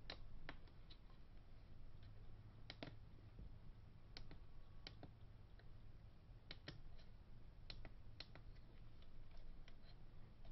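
Faint, irregular clicks of small buttons being pressed on a Lilliput A7S field monitor, stepping through its menu to switch on focus peaking.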